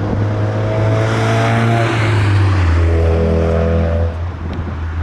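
Jet engines of an Airbus A321 airliner on the runway: a loud, steady rumble with several engine tones that fall slightly in pitch, easing off a little after about four seconds.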